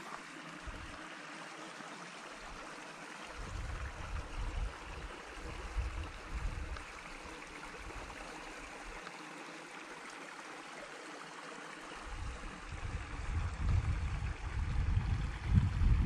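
A stream running with a steady rushing sound. Irregular low rumbling on the microphone grows louder near the end.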